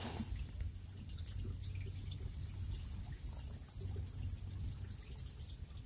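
Faint water trickling and dripping, a steady light hiss with scattered small drips.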